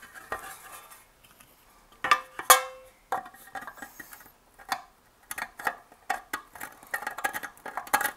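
Steel amplifier chassis being worked by hand: a couple of loud ringing metallic clanks about two seconds in, then a run of short sharp scrapes and clicks as a hand deburring tool works the freshly drilled holes.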